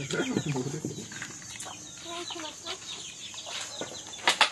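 Chickens clucking, with a low voice talking briefly and a few sharp clicks near the end.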